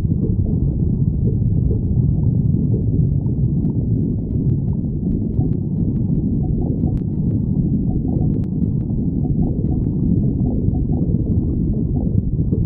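Stomach growling: a steady low rumble, with small gurgles and faint clicks through the middle.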